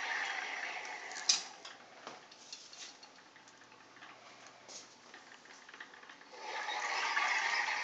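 A small self-balancing two-wheeled robot's geared drive motors whirring as its wheels drive it back and forth on a hard floor. The whirring is louder at the start and again near the end, with a sharp click about a second in and light ticks in the quieter stretch between.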